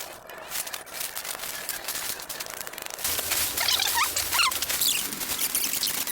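Rustling and crackling throughout. From about three seconds in come quick high squeaky chirps of small birds, repeating until the end.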